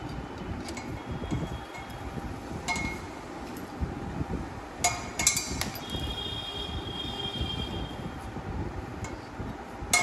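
Steel socket on a long extension bar clinking against the bolts of a motorcycle cylinder head cover as it is fitted and turned by hand. Sharp metallic clinks that ring briefly, a cluster of them about five seconds in and another near the end.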